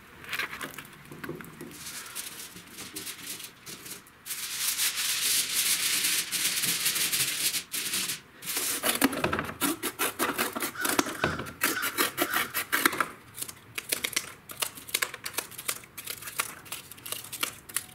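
Aluminum foil crinkling and rustling as it is pressed and smoothed over cardboard, with cardboard scraping. Near the end, scissors cut cardboard into small pieces in a run of short snips.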